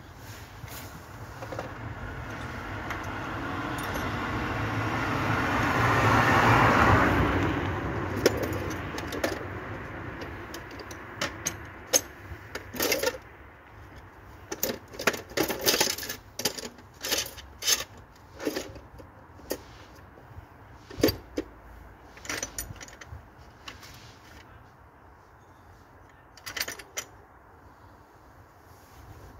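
A vehicle passes, its noise swelling over about six seconds and fading away. Then comes an irregular series of sharp metallic clinks and taps.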